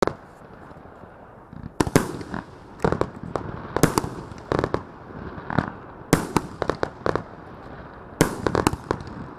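38 mm 25-shot firework cake (EP-5010B Gold Line) firing: a string of sharp bangs as shells launch and burst overhead, about one or two a second, sometimes in quick clusters.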